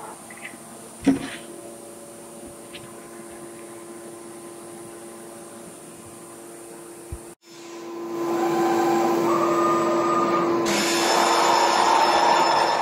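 SCM Tech99 CNC router running: a steady low machine hum with a single knock about a second in. After a break about seven seconds in, the machine noise comes back much louder with a whine, and it turns hissier near eleven seconds.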